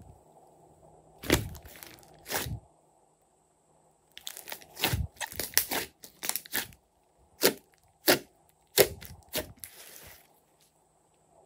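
Glossy slime being pressed and stretched by hand, giving irregular sharp pops and crackles as air pockets in it burst.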